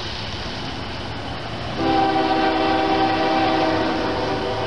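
Union Pacific freight locomotive's air horn sounding one long chord of several notes, starting about two seconds in and lasting nearly three seconds.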